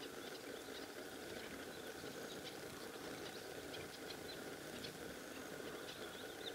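A flock of small finches, Double-barred Finches and mannikins, giving soft, short, high chirps scattered throughout, over a steady background hiss.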